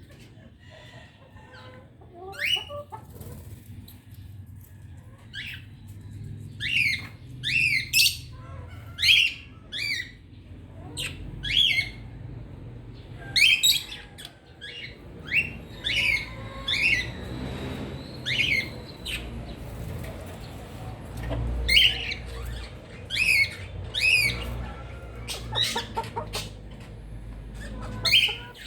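A group of birds squawking, short harsh calls that fall in pitch, repeated many at once in noisy clusters.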